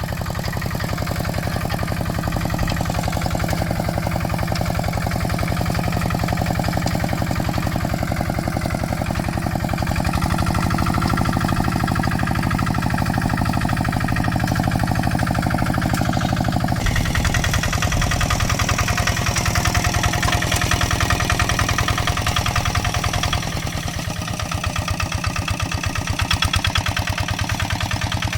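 Kubota RD65 DI single-cylinder diesel engine of a hand tractor running steadily, with a rapid, even beat of firing strokes. A little past halfway its sound turns brighter and harsher, then eases briefly near the end.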